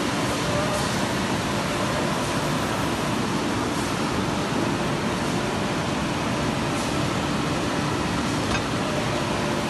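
Packaging-line machinery running steadily: a constant whooshing hum from the shrink tunnel's fans and the powered roller conveyor, with a low steady tone under it and a few faint clicks.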